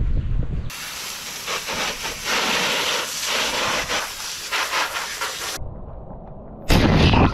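Wind rumbling on the microphone, then, from just under a second in, a garden hose spraying water onto wet stone paving as a steady hiss for about five seconds. A loud rush of noise comes in near the end.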